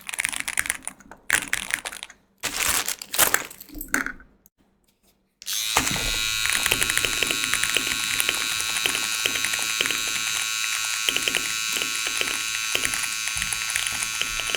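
Computer keyboard typing in irregular bursts of clicks, broken by two short gaps. About five seconds in, a steady buzzing noise starts and runs on, with fine clicks over it.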